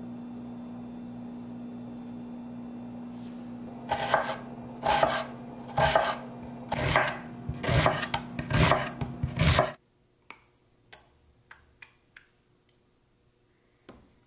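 Loud rasping, scraping strokes of kitchen food preparation, about eight of them roughly a second apart, over a steady low hum; they stop abruptly, and a few faint clicks follow.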